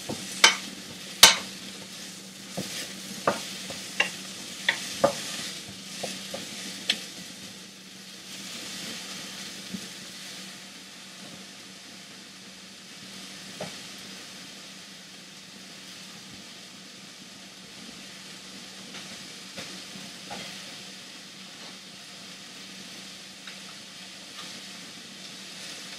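Chinese okra sizzling in oil in a wok while a spatula stirs it, knocking against the wok. The knocks come about every half second to a second for the first several seconds; after that the sizzle runs steadily, with only an occasional knock.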